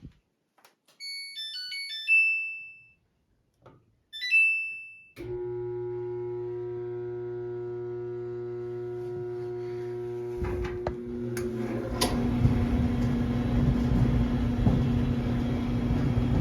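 Samsung dryer's control panel playing its power-on tune, then a shorter start tune. A steady electrical hum follows, and a louder rough rumbling joins it about ten seconds in. The hum fits a motor that is powered but not turning the drum, the fault of a dryer that has power but whose drum won't spin.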